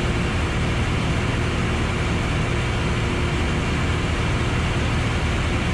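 Piper Arrow's piston engine and propeller droning steadily, heard inside the cabin in flight.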